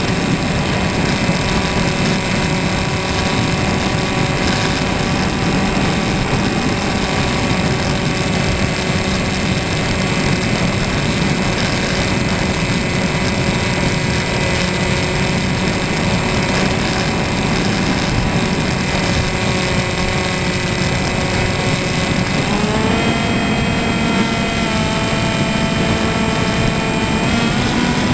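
Motor and propeller of a radio-controlled model plane, heard from a camera on board, with a steady whine over a rush of wind. The pitch steps up about 23 seconds in as the throttle is opened, then shifts again near the end.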